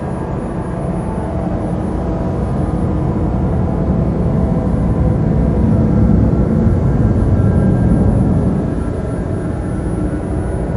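Dark ambient drone music: a dense low rumble with several held tones above it, swelling in the middle and easing off near the end.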